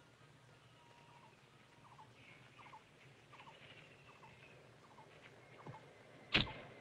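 Rubber slingshot being drawn and shot: faint short squeaks at a steady pace, about every three quarters of a second, then one sharp snap about six seconds in.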